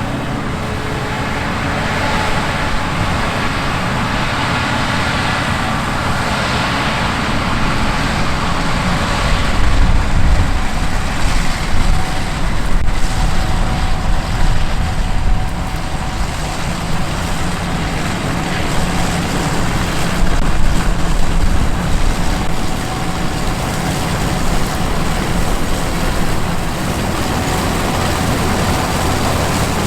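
Gleaner S97 combine harvester running under load while harvesting wheat: a steady low engine rumble under the hiss and whir of the threshing machinery, swelling louder a few times.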